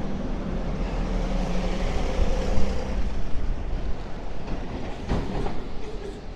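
Steady rumble of a passing vehicle with a faint steady hum in it, loudest over the first few seconds and then fading away.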